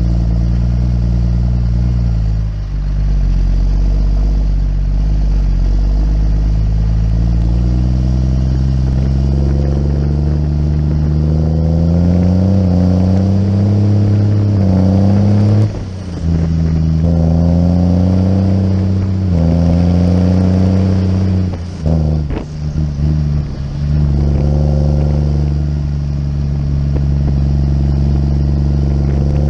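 Farm tractor's diesel engine driving under way: it runs steady, then the pitch climbs several times, each climb broken by a sudden brief drop as the gears change, with a short stuttering lift-off about two-thirds of the way through before it settles to a steady run.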